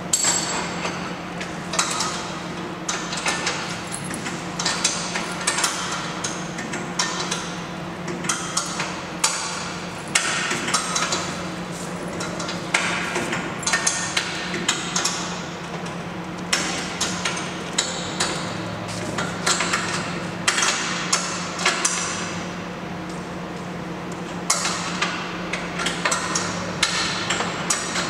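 Repeated sharp metallic knocks and taps, irregular and several a second, from work on the end bracket of an aluminium roller shutter door's coiled curtain, over a steady low hum.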